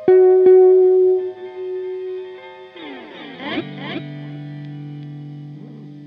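Clean electric guitar note from a Fender Stratocaster run through an Echoplex EP-3 tape echo, its echo repeats trailing off. About three seconds in, the echoes swoop down in pitch in a swirl as the Echoplex's controls are worked, then settle into a steady low drone.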